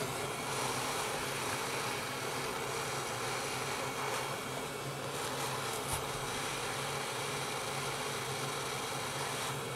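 Hot air rework gun blowing steadily, an even whirr of fan and rushing air with a low hum, aimed at the charging-port flex cable. A soft click about six seconds in.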